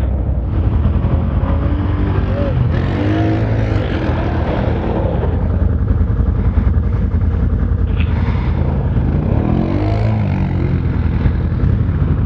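ATV engines running steadily, revving up and down a couple of times.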